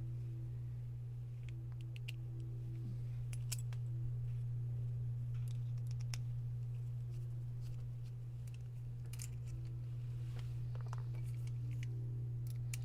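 Scattered small clicks and light metallic taps from laptop hinge parts and small tools being handled during a hinge repair, over a steady low hum.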